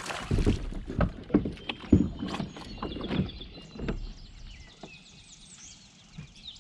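A run of irregular knocks and thumps on a kayak hull from gear and handling, about seven in the first four seconds, the loudest about two seconds in. After that it goes quieter, with faint bird chirps.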